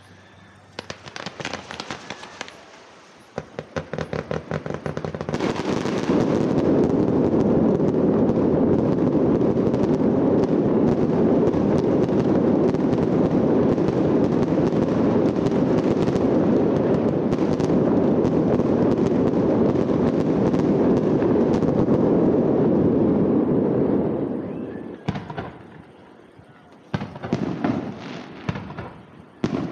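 Fireworks display: rapid crackling pops from about a second in build into a dense, continuous barrage of bursts lasting about twenty seconds, then thin out to scattered pops and bangs near the end.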